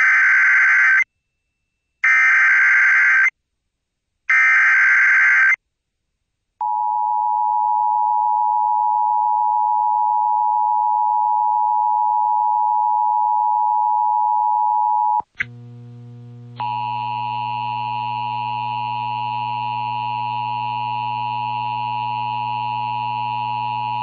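Emergency Alert System alert on NOAA Weather Radio: three one-second bursts of screeching SAME data tones, then the long single-pitch warning alarm tone, which cuts off after about eight seconds. After a click, a steady drone of several held tones follows.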